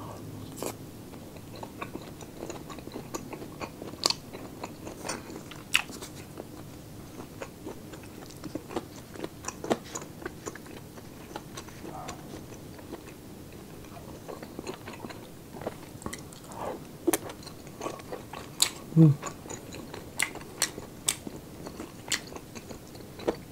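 Close-miked chewing and biting of braised beef and pork sisig: irregular crunches and wet mouth clicks.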